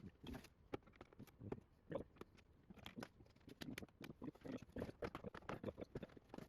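Irregular light clicks and knocks of small plastic trim pieces and fasteners being handled and pried while a car door is taken apart.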